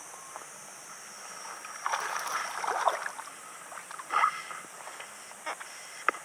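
Small largemouth bass hooked on an Alabama rig splashing at the water's surface as it is reeled in, in bursts about two seconds in and again around four seconds, over a steady hiss. A few sharp clicks near the end.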